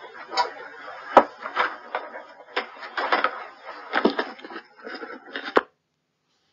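A hand striking the side of a wooden staircase: irregular knocks and bangs, the sharpest about a second in and just before the sound cuts off near the end. It is a man's acute stress reaction, heard through a noise-filtered recording with some warbling artefacts.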